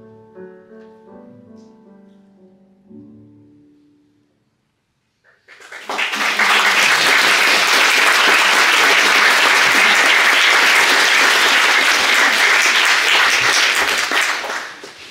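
A piano plays the last soft notes of a song's outro and dies away. After a second of silence, an audience breaks into loud applause that lasts about nine seconds and fades out near the end.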